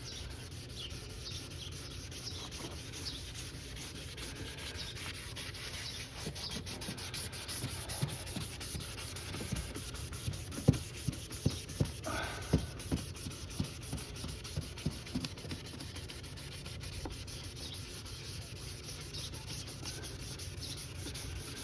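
Wet sanding of a plastic headlight lens by hand: 600-grit sandpaper on a sanding block rubbing back and forth in quick, even strokes, with several louder knocks about halfway through.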